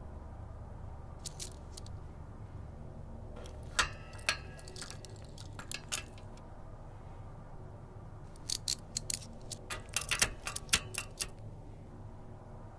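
Steel handcuffs clicking and rattling as a hand works at the cuff's lock, in scattered sharp clicks with two busier spells, one around four to six seconds in and a denser one around nine to eleven seconds in. A low steady hum runs underneath.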